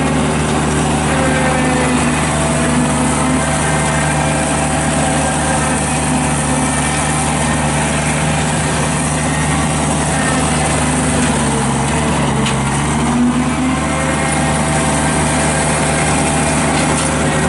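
Ditch Witch SK755 mini skid steer running steadily with its CID 42-inch brush cutter deck spinning; the engine pitch dips briefly about twelve seconds in.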